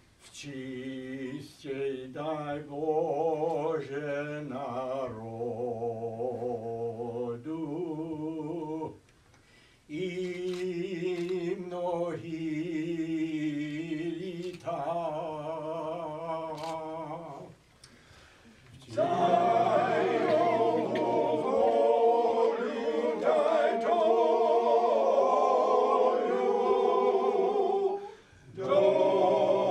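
Small men's ensemble singing a cappella, in phrases with short breaks between them; about two-thirds of the way through the singing grows louder and fuller.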